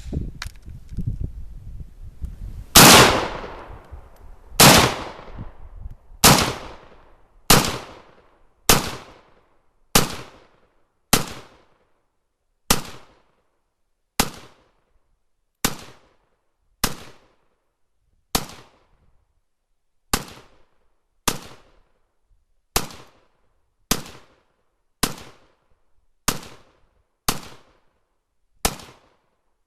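Zastava PAP M92 AK-pattern pistol firing 7.62×39 mm rounds as single semi-automatic shots at a steady pace, about one every second and a half, some twenty in all. Each shot dies away in a short echo. A low rumble fills the first few seconds before the shots begin.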